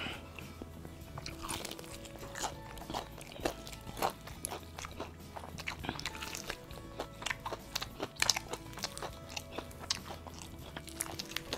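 Fried chicken with a crisp breaded crust being bitten and chewed: many short, irregular crunches. Background music plays under it.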